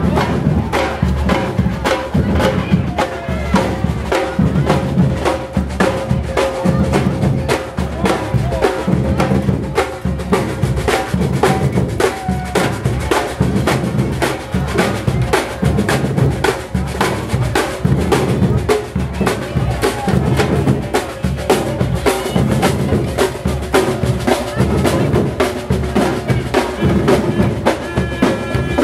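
A street drum band of large bass drums and smaller drums beaten with sticks, playing a steady, driving rhythm.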